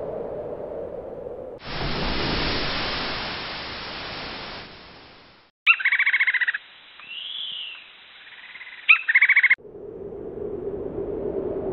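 Sound-effect ambiences switching abruptly: a steady low hum, then a rushing noise that fades away over about four seconds, then bird calls with a few sharp squawks, then the low hum again.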